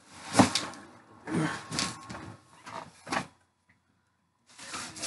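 Cardboard box and loose styrofoam packing peanuts being handled and shifted, rustling and scraping in several short bursts, with a brief pause just before the end.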